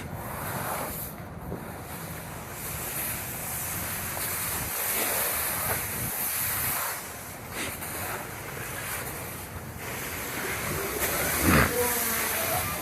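Steady rushing noise, like wind on the microphone, over a low rumble, with one sharp knock about eleven and a half seconds in.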